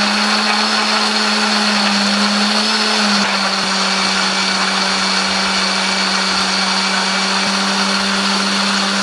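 Countertop blender motor running steadily at speed, grinding bird's-eye chilies, shallots, garlic and candlenuts with a little water into a smooth spice paste. Its hum drops a little in pitch about three seconds in, then holds.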